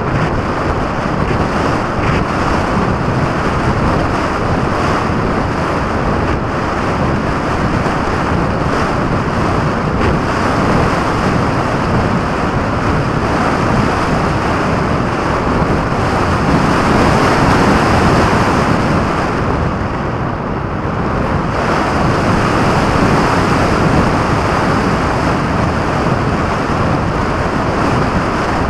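Airflow rushing over the microphone of a camera mounted under the wing of a radio-controlled model plane in flight: a loud, steady wind rush with no motor tone, swelling a little past the middle and dipping briefly soon after.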